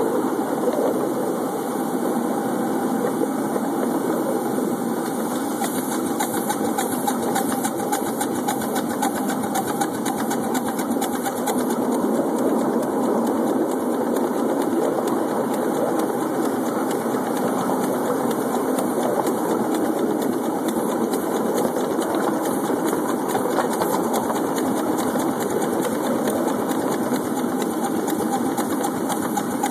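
Miniature live-steam locomotive running along the track: a steady, fast, even clatter of exhaust beats and wheels.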